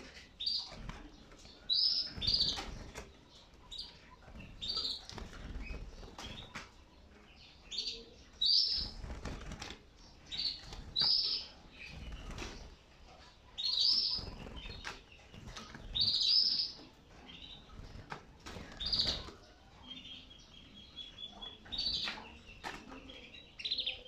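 Yellow canaries in a wire cage fluttering about, wings flapping in short bursts, with short high chirps every second or two.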